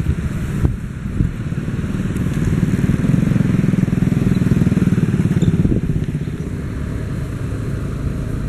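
Motorcycle engine running close by, growing louder and then easing off about two-thirds of the way through.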